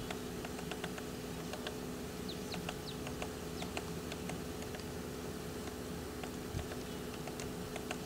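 Woodpecker tapping and picking at tree bark, a quick irregular run of light taps, with a few short falling bird chirps about two to three seconds in. A steady low hum runs underneath.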